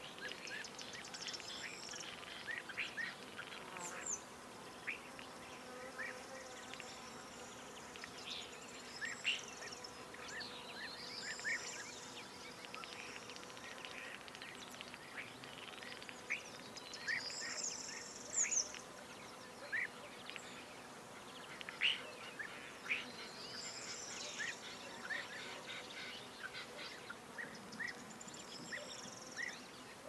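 Evening birdsong: several small birds chirping and whistling in short, scattered phrases and quick sweeping notes, over a steady faint hiss.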